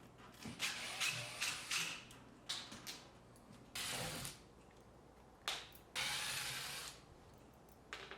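Screws being backed out of the camper's roof track with a driver, in several short runs of whirring and ratcheting, each about a second long.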